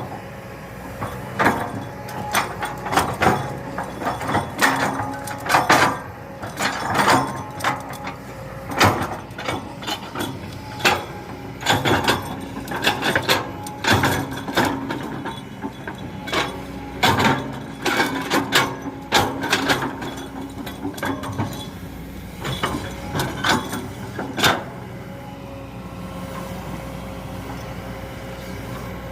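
Diesel excavator running steadily under many irregular metallic clanks, knocks and scrapes of the machine at work. The clanking stops about 25 seconds in, leaving the engine running on its own.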